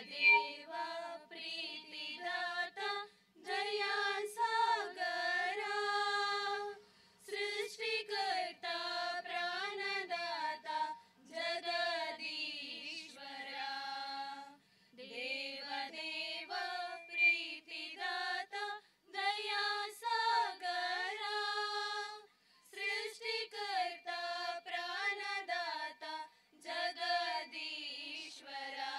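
A small group of high female voices singing a prayer song together without accompaniment, in phrases of a few seconds with short breaks between them.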